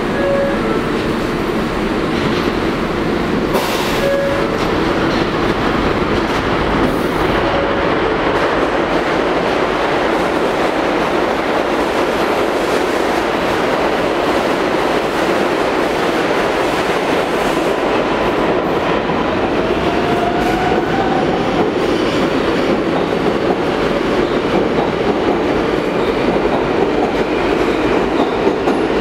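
Kawasaki R142A subway train pulling out of the station, a steady loud rumble of steel wheels on rails and running gear as the cars roll past.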